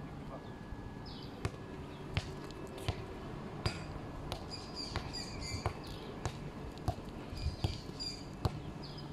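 A steady series of sharp knocks, about one every three quarters of a second, with birds chirping in the background.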